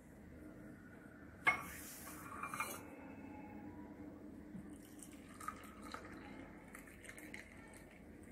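Ginger drink poured through a tea strainer into a glass: a sharp clink about a second and a half in, then a short stream of liquid for about a second and a half, followed by light drips and small clinks.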